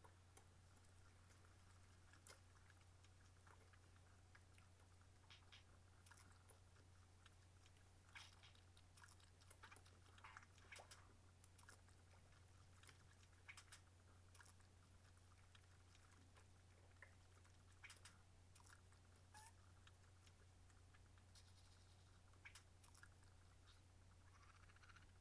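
Near silence: room tone with a steady low hum and scattered faint clicks and taps, clustered around the middle.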